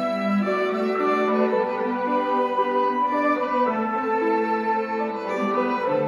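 Small string ensemble playing: violins and a cello bowing a melody in long held notes.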